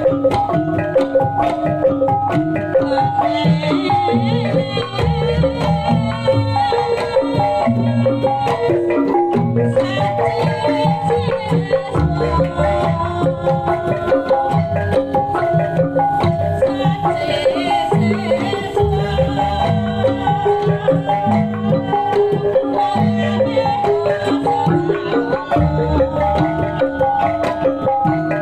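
Kuda lumping accompaniment music in the Javanese gamelan style: metallophones play a repeating melody over hand-drum beats and deep bass notes that change every few seconds.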